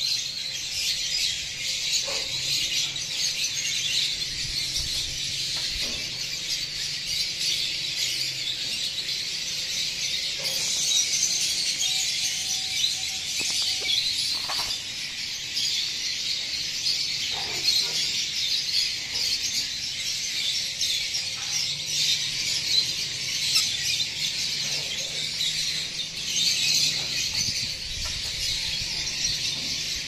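Continuous, dense high-pitched chirping and chattering of caged lovebirds.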